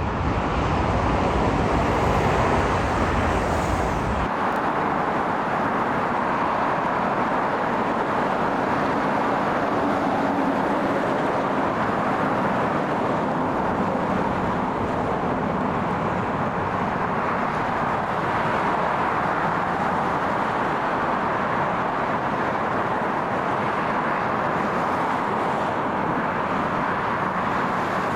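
Aircraft engine noise at an airport: a steady, even rush with no rise or fall in pitch. The deep low rumble under it stops abruptly about four seconds in.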